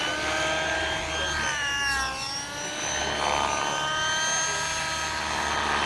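Radio-controlled model airplane engine running at a high pitch. About two seconds in, the pitch dips and then climbs back.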